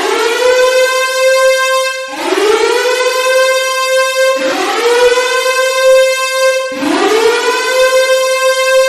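Civil-defence (nuclear attack warning) siren wailing: its pitch climbs quickly and then holds a steady high tone, with a new rise starting about every two seconds over the held note, four times.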